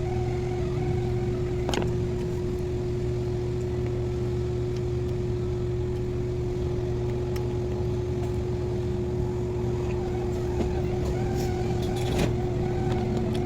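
A steady low motor hum with one constant tone, like an idling engine, and a couple of brief clicks.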